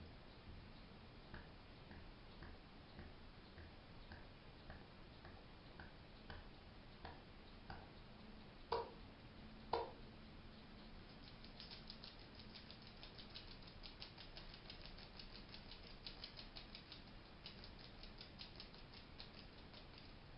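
A hedgehog gives two short, sharp sneeze-like snorts about a second apart near the middle, a noise that is a sign of contentment, not illness. Faint ticking about twice a second comes before them, and fast, fine high ticking follows.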